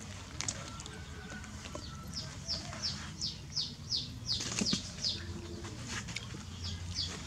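A bird calling in a quick series of short, high, falling chirps, about three a second, starting about two seconds in, pausing, and taking up again near the end.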